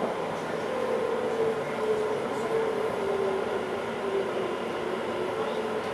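On-board running noise of a Class 710 Aventra electric multiple unit. A steady whine from its traction motors slowly falls in pitch as the train slows.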